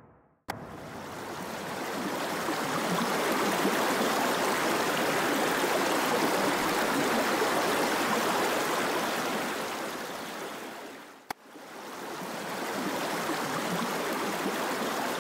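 Steady rushing water, swelling and fading in two stretches. A sharp click about half a second in starts the first, and another click about eleven seconds in starts the second.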